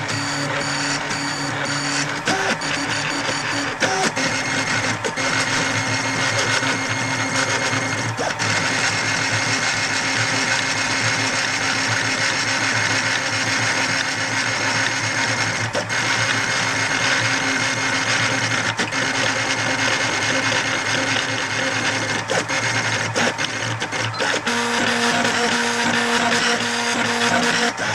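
DIY 3D printer printing: its stepper motors whine in steady tones that shift pitch every few seconds as the print head's moves change, with a few short clicks.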